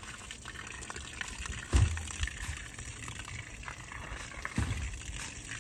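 Water pouring and gushing steadily onto sand backfill around a buried septic tank, wetting the sand so it settles. Two dull low thumps stand out, about two seconds in and again later.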